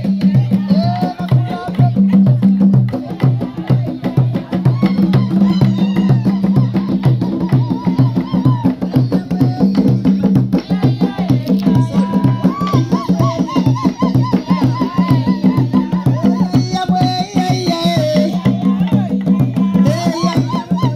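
Traditional hand drums played by hand in a fast, steady rhythm for dancing, with high trilling voices rising over the drumming in places.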